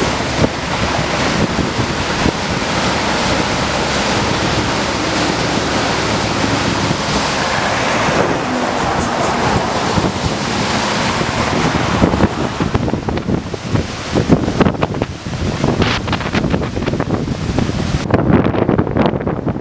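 Floodwater rushing and surging, with strong wind buffeting the microphone. About twelve seconds in, the sound turns gusty and uneven.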